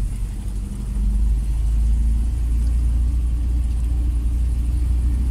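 Car engine running with a deep rumble as the car drives on. It gets louder about a second in and then holds steady.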